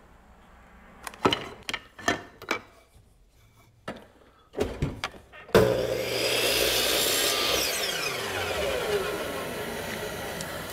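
A few wooden knocks as a slat is handled, then a compound miter saw starts up suddenly a little past halfway and crosscuts a wooden slat to length. Its blade then winds down in a falling whine while a steady hiss carries on.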